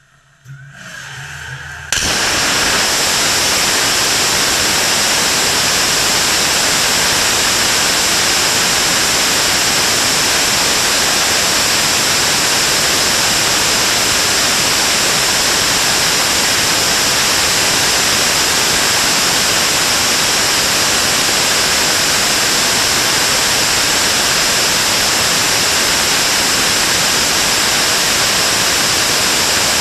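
BPM-5 bi-propellant liquid rocket engine on a static test stand starting up: a softer start-up sound begins about a second in, then at about two seconds the engine lights to full thrust and runs as a loud, steady rushing noise with a strong high hiss.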